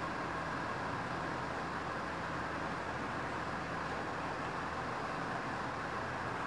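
Steady background hiss with a faint constant hum, unchanging throughout.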